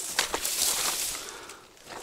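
Footsteps and rustling through dry grass and reeds, with two sharp snaps near the start; the crackling dies away in the second half.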